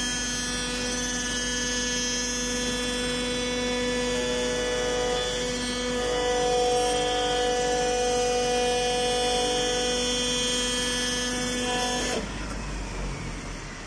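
CNC flatbed cutting table's motors running with a steady hum and whine of several tones at once, some of which stop and start again now and then. About twelve seconds in, most of the tones stop, leaving a quieter hum.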